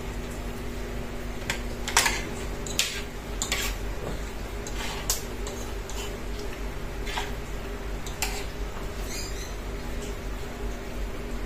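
Metal spoon and fork clinking on a ceramic plate as they are set down, then scattered sharp clicks and knocks about a second apart, over a steady low hum.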